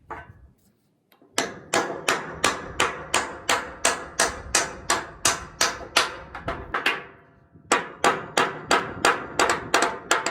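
Hand hammer striking metal in quick, even blows of about three a second, each with a metallic ring, tapping a disc-harrow bearing around to flip it into place in its flange. The blows pause briefly about seven seconds in, then start again.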